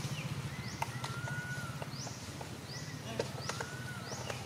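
High-pitched chirping calls repeat about once a second, each sweeping up and back down, with a few thinner whistles and clicks, over a low steady hum.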